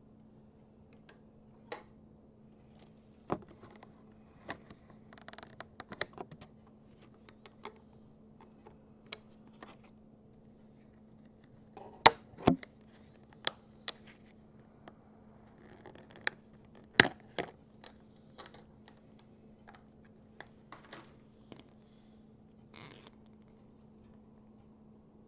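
Scattered clicks and taps of small plastic and metal parts being handled while memory modules are fitted into an open Dell Inspiron laptop. The two loudest snaps come about twelve and seventeen seconds in, over a faint steady hum.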